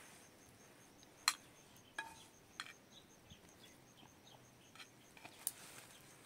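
A metal spoon clinking against a metal bowl, several sharp clinks, one ringing briefly, over faint steady cricket chirping.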